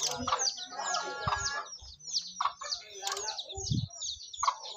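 Birds calling: a run of quick, high, downward chirps repeating throughout, with a few shorter, lower calls. There are a couple of brief low thumps.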